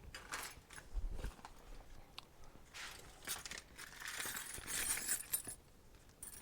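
Small metal carburetor parts and hand tools clinking and rattling as they are handled, a few sharp clicks with a busier stretch of jingling and scraping in the middle.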